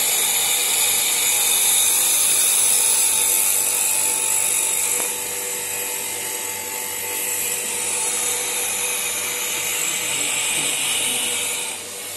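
Bench grinder (200 mm, 350 W) with its abrasive wheel grinding an edge onto a steel hacksaw blade: a steady high hiss over the motor's hum. The grinding eases about five seconds in, picks up again a couple of seconds later, and drops away near the end.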